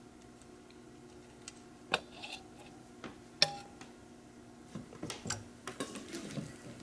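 Small metal clicks as nuts and lock washers are worked off an aluminium TV antenna's bracket screws by hand, including one sharp clink with a short ring about three and a half seconds in; near the end, light clicking and rattling of the antenna's aluminium rods as the frame is moved.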